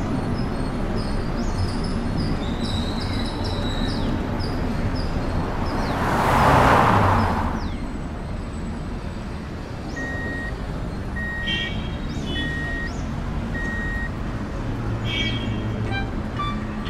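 Street background with a car driving past, swelling up and fading about six seconds in. Later come four short, evenly spaced beeps.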